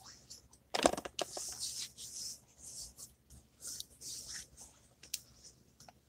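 Hands rubbing and scratching right up against the microphone: a run of short, hissy scrapes, with a sharp knock about a second in and a couple of light clicks near the end.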